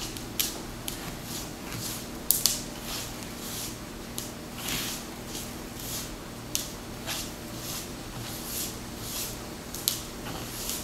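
Hands rubbing oil into a flour mix in a bowl: irregular soft rustling scrapes, about one or two a second.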